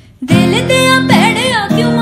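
Slowed, reverb-heavy Punjabi pop song: strummed acoustic guitar with a woman singing. The music cuts out for a moment right at the start, then comes back in.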